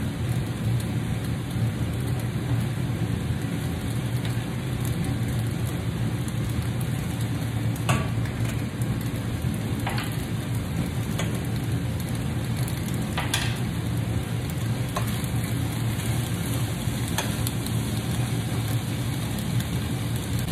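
Pasta shells, vegetables and a splash of pasta water sizzling steadily in a stainless frying pan, over a low steady hum. A few short sharp clicks are scattered through the sizzle.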